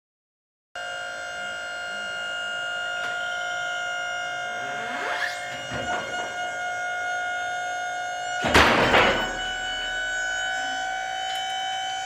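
Hydraulic pump on a Wood-Mizer LT40 Wide sawmill whining steadily as the hydraulics roll the log. The whine starts just under a second in, with brief rising sweeps around five seconds in and a loud clunk at about eight and a half seconds.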